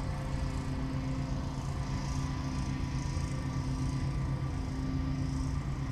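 Steady hum of a honey bee colony buzzing over an open hive, a continuous drone with a few held low tones.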